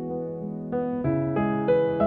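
Background piano music: a slow, gentle melody, with fresh notes struck several times in the second half.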